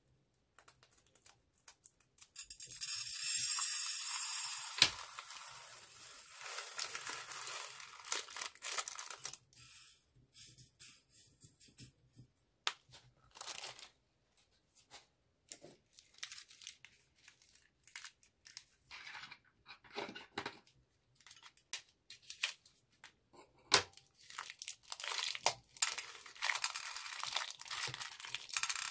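A few faint snips, then tiny plastic beads pour from a cut piping bag into a glass dish as a loud hissing rattle for a few seconds that tails off. After that come scattered clicks of beads and crinkling of the plastic piping bags, growing busier near the end.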